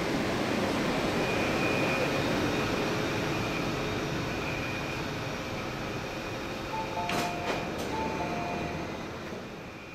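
MTR SP1900 electric train rolling alongside the platform and slowing to a stop, its running noise fading with a faint steady whine. About seven seconds in, clunks of the doors opening and a two-tone door chime sounding twice.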